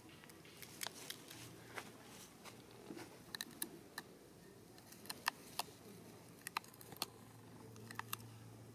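Pig-tailed macaque biting and chewing food: irregular short sharp clicks and crunches, now and then several in quick succession.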